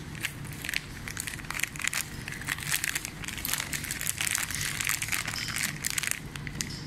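Thin plastic bag crinkling and rustling in quick, sharp crackles as pork cracklings are shaken out of it.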